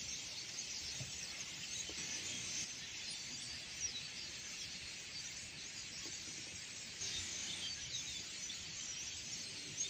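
A huge flock of starlings gathered on power lines, chattering all at once: a dense, continuous high-pitched mass of chirps, whistles and clicks.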